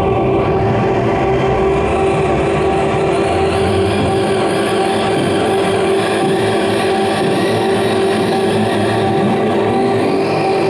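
Loud live band music: a single steady droning tone held unbroken over a dense, noisy wash of amplified guitar.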